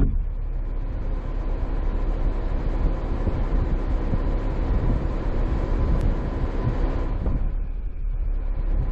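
Car driving along a road: steady road rumble and tyre noise with a faint steady hum.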